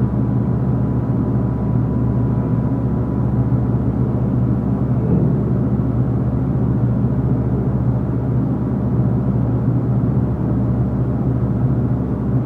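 A steady low drone, machine- or engine-like, with a faint high tone in the first few seconds. It holds level throughout and cuts off suddenly at the end.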